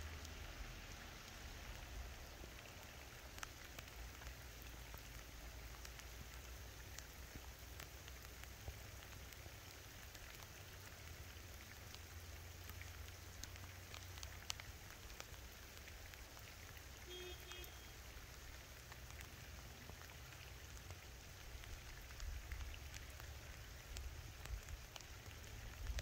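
Rain falling steadily, heard faintly as an even hiss with scattered ticks of single drops over a low rumble.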